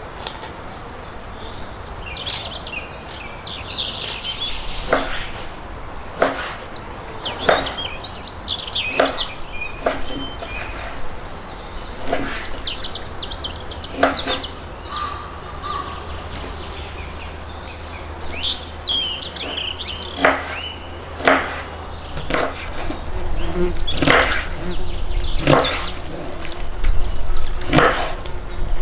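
Songbirds chirping again and again, with sharp knocks every second or two from about five seconds in.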